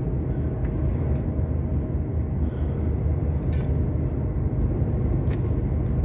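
Steady low rumble of a lorry's diesel engine and road noise heard inside the truck cab while driving, with a few faint ticks.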